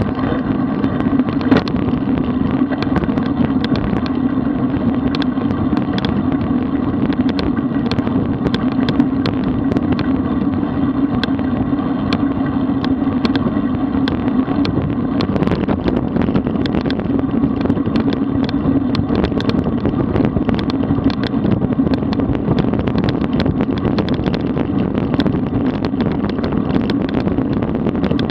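Steady wind rush and road noise on the microphone of a camera mounted on a road bicycle riding at about 37 km/h, with frequent small clicks and rattles.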